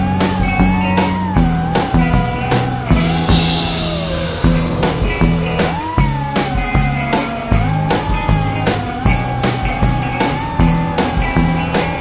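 Background music: a rock track with a steady drum beat, repeating bass notes and a gliding lead melody, with a brief hissing swell about three seconds in.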